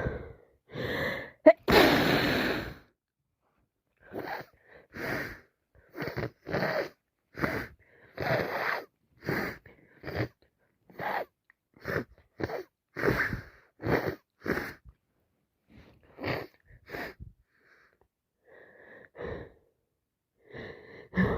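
A person with a heavy head cold sneezes once, loudly and wetly, about two seconds in, then takes a long run of short, quick wheezy breaths, about one or two a second.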